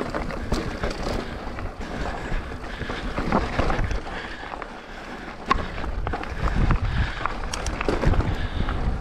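Mountain bike riding down a rocky dirt singletrack: tyres crunching over gravel and stones, with sharp knocks and rattles from the bike over the rough ground, under wind buffeting the helmet-mounted microphone.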